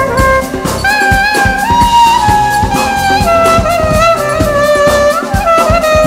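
Clarinet playing a melody of held and gliding notes over a band with a steady beat, an instrumental interlude in a Turkish folk song.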